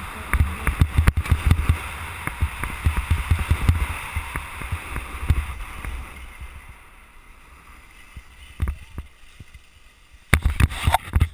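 Skis sliding and scraping over soft spring snow at speed, with wind buffeting the camera microphone; the noise dies down about six seconds in as the skier slows to a stop, and a burst of louder noise comes near the end.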